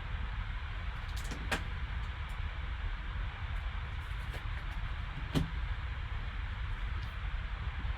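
Trading cards being handled over a steady hiss: two sharp clicks, about a second and a half in and again about five seconds in, with a few fainter ticks between.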